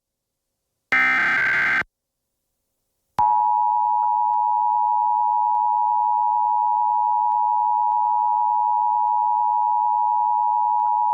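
Emergency Alert System broadcast signal, opening a Required Monthly Test. First comes a harsh digital SAME header burst lasting about a second, the last of three. After a short silence, from about three seconds in, the EAS two-tone attention signal (853 and 960 Hz sounded together) holds steady for about eight seconds over a faint low hum, then cuts off suddenly.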